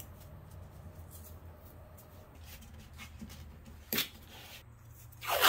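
Blue painter's tape being laid down by hand: faint rubbing as strips are smoothed flat, then two short rips of tape pulled off the roll, one about four seconds in and a louder one just before the end, over a low steady hum.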